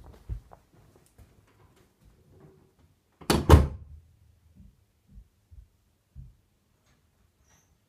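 A few soft footfalls, then about three seconds in an interior door is pushed shut with two quick knocks as it hits the frame and the latch catches. Faint light knocks follow.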